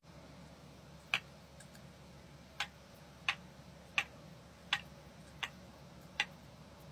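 Seven short, sharp clicks from handling a small watch-strap link-removal tool, the first about a second in and the rest coming fairly evenly, a little more than one a second.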